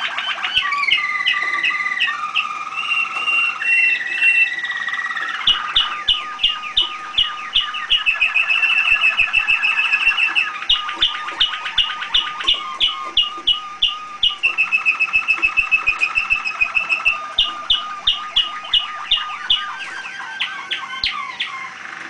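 Domestic canary singing in a cage: rapid trills held for a second or two alternate with runs of sharp notes repeated about three to four times a second.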